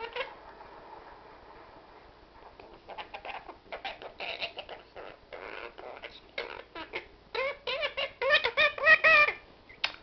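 Quaker parrot chattering in short clicks and chirps, then a quick run of loud, squeaky squawks, about four or five a second, in the last few seconds.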